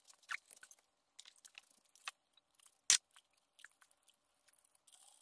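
Scattered small clicks and taps of hand tools and metal parts being handled around an engine's intake manifold, with one sharper click about three seconds in.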